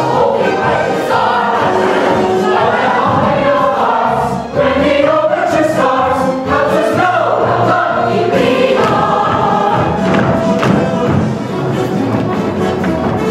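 Large cast of a stage musical singing together as a chorus in an ensemble number.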